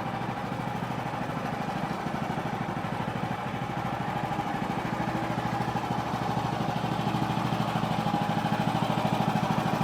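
Woodland Mills HM130 Max bandsaw mill running, its gas engine pulsing steadily under load while the band blade cuts through a large log; it gets slightly louder toward the end.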